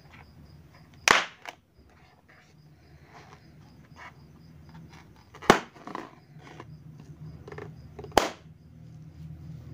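Small latex balloons pricked with a toothpick and popping: three sharp bangs, about a second in, midway and near the end, with light handling clicks between.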